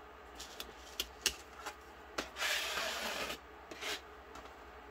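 Small light taps and clicks as model pieces are handled on a cutting mat. About halfway through comes a second of rubbing, as something is slid across the mat, and a shorter scrape follows about a second later.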